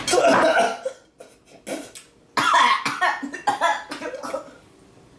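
Two people coughing, gagging and spitting into bowls after swallowing a shot of spicy milkshake laced with wasabi. A loud bout in the first second, a few short coughs, then a second loud bout about halfway through.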